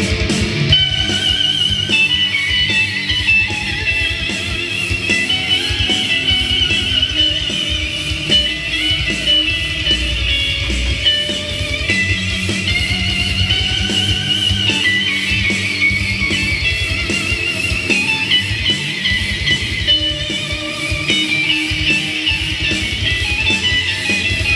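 Rock music: an electric guitar played through an Earthquaker Devices Astral Destiny reverb pedal carries a lead line with wavering, vibrato-laden high notes over a driving backing track with a steady beat.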